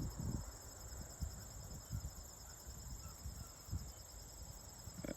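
Insects, crickets, trilling steadily at a high pitch, with scattered faint low rumbles underneath.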